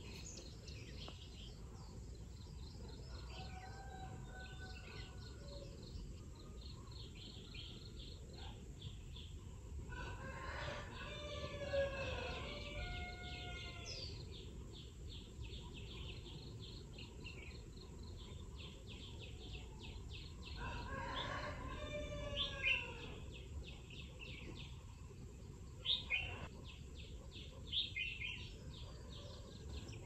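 A rooster crowing twice, each crow about three seconds long, over steady high chirping of small birds and a low background rumble.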